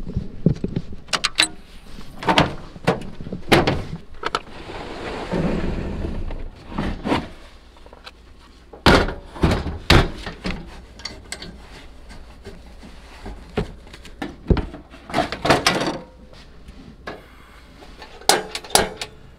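A run of sharp clunks, knocks and thuds as gear is handled at the back of a pickup and a HyperFlame two-burner camp stove in a red plastic case is set out and opened. A longer scraping or sliding sound comes about four to seven seconds in.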